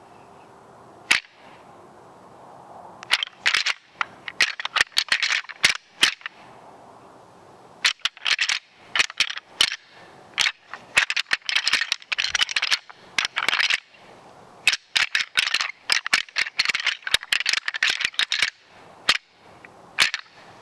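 Deer rattling call worked by hand to imitate two bucks sparring: bursts of sharp clicking clatter, each lasting one to four seconds, broken by short pauses, with a few single clicks near the start and end.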